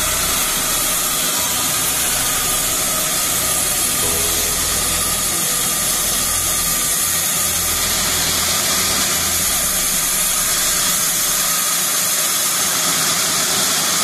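Large sawmill band saw running steadily while a bark-covered log is fed through its blade. A constant, even hissing noise with no breaks.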